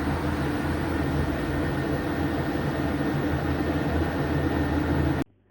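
Washing machine running with a steady low hum and hiss, cutting off suddenly near the end.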